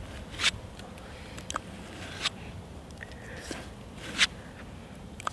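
Axe edge dragged hard along the rough inner side of a leather belt dressed with stropping compound: three short scraping strokes about two seconds apart, the stropping that polishes the bevel.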